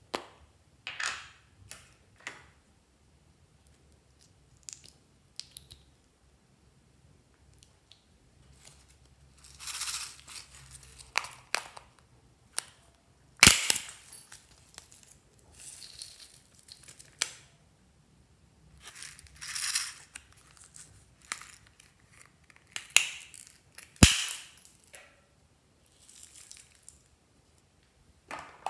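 Clicks and snaps of a hollow plastic toy container being handled and pried open, with stretches of rustling as glitter and sequins are shaken out of it into a glass tray. Two sharp snaps stand out as the loudest, about halfway through and near the end.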